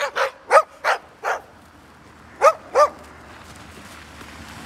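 Dog barking in short, sharp barks: four quick ones in the first second or so, then two more close together about two and a half seconds in.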